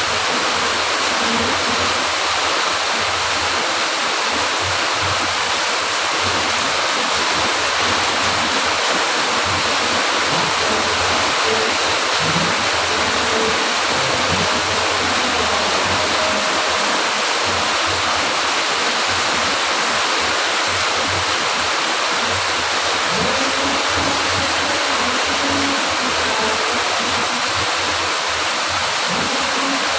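Steady heavy rain, a dense, even hiss that keeps on without let-up.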